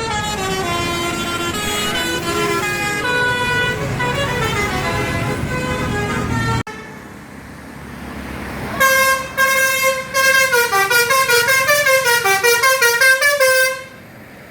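Basuri 'telolet' multi-tone bus horn playing a melody of changing notes over engine rumble, breaking off suddenly about six and a half seconds in. Near nine seconds in it starts again with a fast run of quick, staccato horn notes, several a second, that stops shortly before the end.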